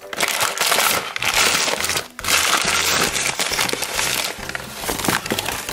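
Crumpled paper leaflets, used as packing, rustling and crinkling as a hand digs through them to pull out an ice cream tub, with a brief pause about two seconds in.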